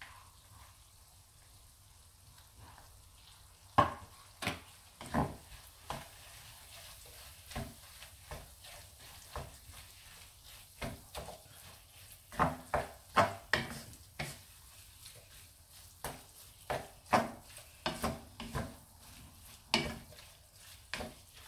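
Wooden spatula stirring and scraping a thick chili-peanut satay paste in a non-stick frying pan, over a faint steady sizzle. The stirring strokes begin about four seconds in and come in irregular runs.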